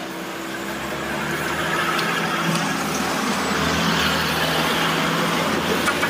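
A motor vehicle passing on the road, a steady engine hum with tyre and road noise that swells louder from about a second in.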